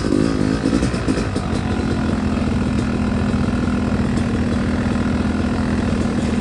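Yamaha dirt bike's engine running. Its pitch rises and falls with the throttle for about the first two seconds, then holds steady.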